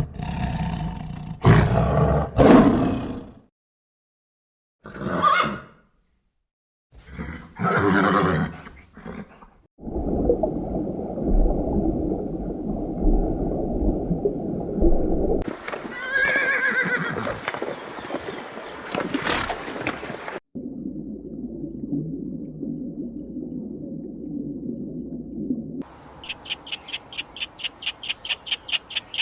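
A run of different animal calls played one after another. Several short roar-like calls come first, then two long stretches of low steady noise with a pitched call between them, and a fast, high, pulsing trill near the end.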